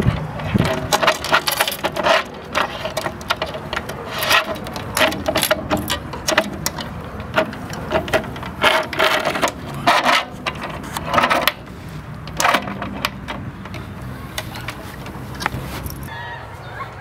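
Knife blade being sharpened in a guided sharpener: a run of quick scraping strokes, metal against the abrasive, that thin out and grow quieter after about twelve seconds.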